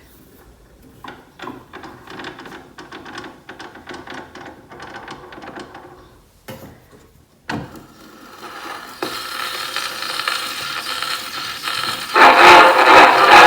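Wind-up gramophone being started: scattered mechanical clicks and rattles for about six seconds, then a click as the needle goes down, followed by steady record surface hiss. Near the end, loud music from the record begins.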